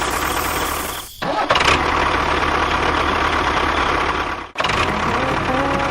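A steady engine running sound from a miniature construction vehicle. It cuts out abruptly about a second in and again near the four-and-a-half-second mark, resuming at once each time.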